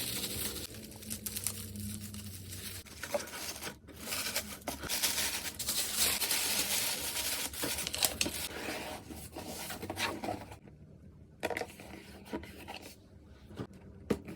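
Packing materials crinkling and tearing as an order is packed by hand, with frequent sharp clicks and taps. It is busy for about the first ten seconds, then quieter with only scattered clicks.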